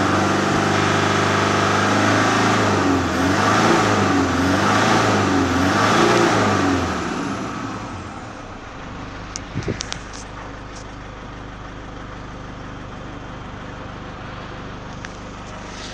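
A 2005 Toyota Hilux's 3.0-litre four-cylinder turbo diesel running at about 3,000 rpm, then revved up and down about three times, then dropping back to idle about seven seconds in. A few light clicks come near the ten-second mark.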